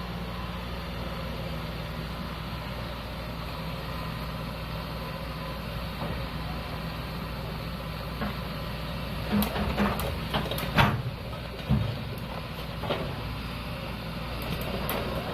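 A heavy diesel engine running steadily. In the second half come a series of sharp metal clanks and knocks, the loudest about eleven seconds in.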